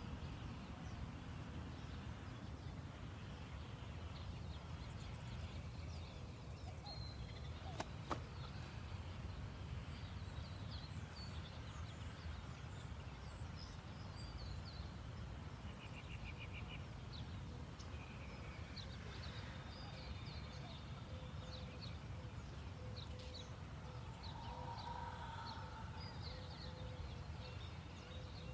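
Outdoor ambience: small birds chirping and trilling over a steady low rumble, with one sharp click about eight seconds in.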